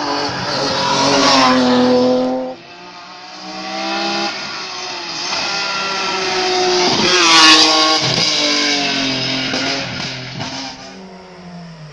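Rally car engines revving hard as two cars come up the stage one after the other, the pitch climbing and dropping back at each gear change. The first car is loud at the start and cuts off abruptly; the second builds to its loudest about seven to eight seconds in, then fades.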